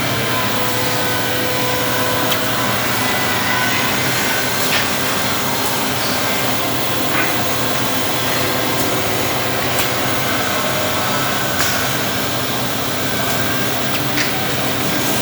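Two-head automatic drilling machine with automatic workpiece feed running with a steady motor hum. Short knocks recur about every two and a half seconds.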